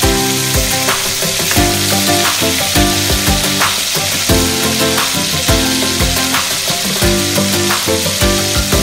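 Chicken pieces sizzling as they fry in oil in a wok, turned with a metal spatula. Background music with a steady beat plays over the sizzling.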